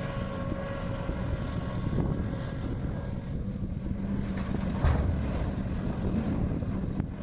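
Liebherr R 974 excavator's diesel engine running steadily under wind noise on the microphone, with a brief louder knock about five seconds in.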